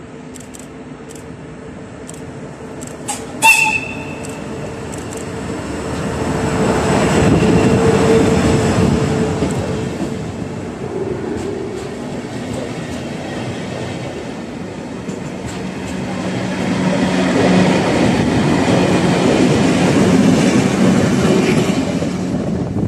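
Locomotive-hauled passenger train with an electric locomotive: a short horn toot about three and a half seconds in, then the train running past close by, with rumble and wheel clatter on the rails swelling twice as the coaches go by.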